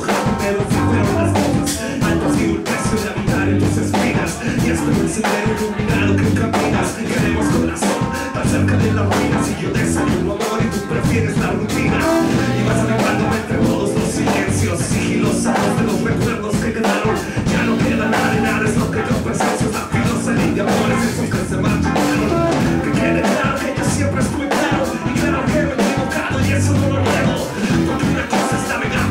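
Live band of saxophone, electric guitar and drums playing an upbeat groove with a steady beat, with a voice rapping over it into a microphone.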